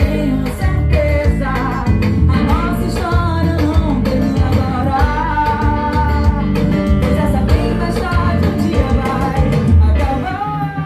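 Music: a song with a singer's voice over band accompaniment.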